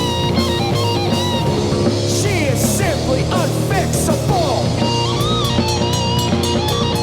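Rock band playing an instrumental passage: electric guitar lead with sliding notes over bass and drum kit, cymbals hit in a steady beat in the second half.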